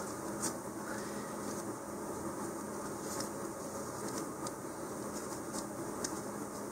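Faint, scattered crinkles of a thin plastic model-rocket parachute being handled while a shroud line is knotted through its corner, over a steady low hum.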